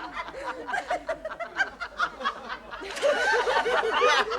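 Sitcom studio audience laughing, many voices together, swelling louder about three seconds in.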